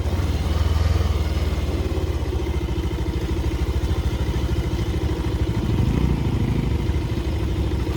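Motorbike engine running steadily under way, a continuous low firing pulse.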